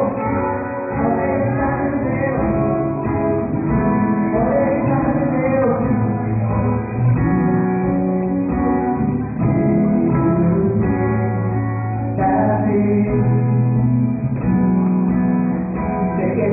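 A live band playing a song, with singing over guitar and a bass line.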